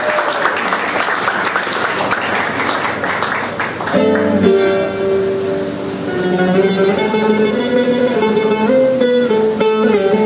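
Audience applauding, then about four seconds in a saz, a long-necked plucked lute, starts playing a melody.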